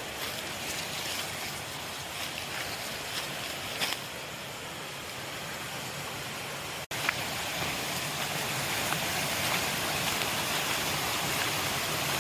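Rainforest ambience: a steady rushing hiss, with a sudden break about seven seconds in, after which it is slightly louder.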